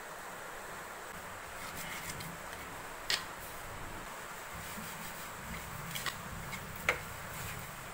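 A hand rubbing spice masala into a whole fish in a metal pan, with a few sharp clicks as the hand knocks against the pan, over a steady background hiss.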